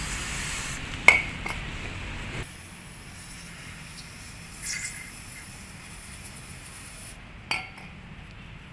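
Aerosol cleaner spray hissing onto a VTEC solenoid assembly held over a metal tray, cutting off about seven seconds in. Two sharp metal clinks of parts against the tray, the louder one about a second in.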